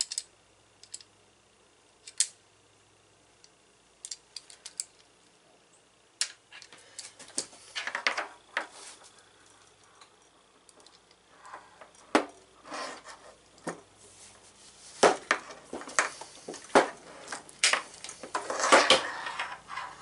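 Metal clicks and clatter of a hand-operated battery-cable lug crimper being adjusted to a tighter setting and squeezed onto a cable lug. A few scattered clicks at first, then denser clicking and scraping from about six seconds in, with the busiest clatter near the end.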